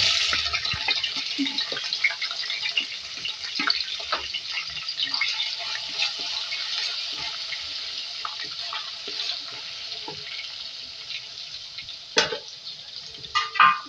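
Ginger-garlic paste frying in hot oil in a clay karahi. A loud sizzle starts suddenly and slowly dies down, with crackling and a spoon scraping as it is stirred.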